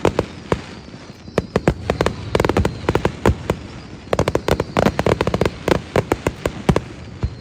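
Fireworks display: many sharp bangs in quick succession, coming in dense clusters, with a short lull near the end.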